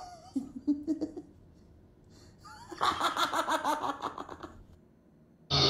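A man laughing hard: a few short vocal sounds, then a rapid run of 'ha-ha' pulses for about a second and a half in the middle. Near the end a loud, steady rushing noise cuts in abruptly.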